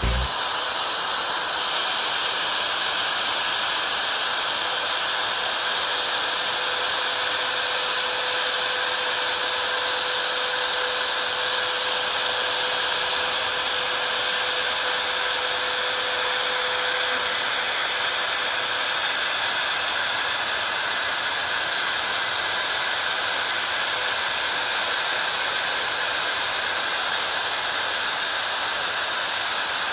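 CNC router spindle with a 4 mm up-cut bit milling 6 mm aluminium sheet, a steady whir and hiss that stays level throughout.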